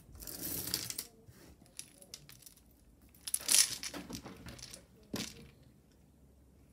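Costume jewelry being handled on a tabletop while a necklace is untangled: plastic beads and metal chain clicking and rustling in a few short spells, loudest around the middle.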